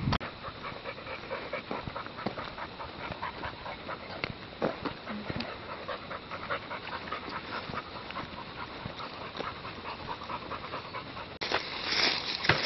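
An animal panting, over a dense, irregular patter of small clicks and knocks. A louder rush of noise cuts in suddenly near the end.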